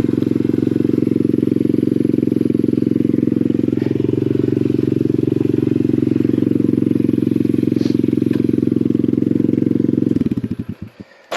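Lifan 125 single-cylinder four-stroke pit bike engine running steadily, then cutting out about ten seconds in and winding down to a stop.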